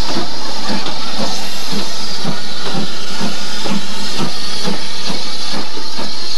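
Steam locomotive: a loud, steady hiss of steam with a regular beat about twice a second.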